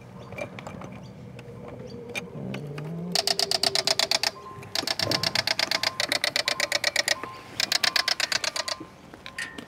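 Three bursts of fast, even clicking, about ten clicks a second, from Knorr-Bremse trailer electronic braking (TEBS/TRM) modules as they are plugged in and powered up. The middle burst, about two seconds long, is the longest.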